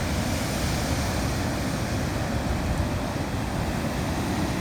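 Wind buffeting the microphone in a steady low rumble, over an even wash of ocean surf.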